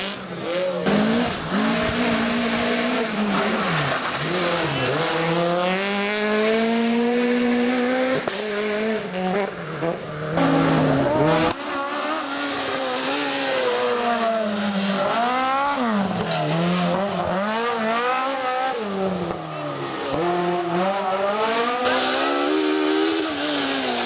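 Rally car engines at full throttle, revving up through the gears and dropping back again for the bends. Several passes follow one another with abrupt changes of car.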